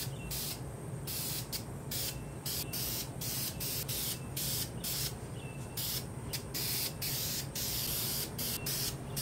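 Aerosol can of high-temperature spray paint hissing in a rapid series of short bursts with brief gaps, a few held a little longer.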